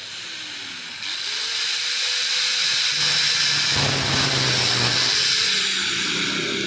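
Angle grinder running steadily, its spinning disc grinding down the protruding brass thread insert on an aluminium cylinder head.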